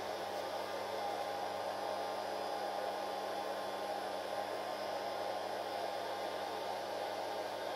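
Homemade arc welder built from microwave-oven transformers, switched on and idling with no load: a steady mains hum under an even airy hiss.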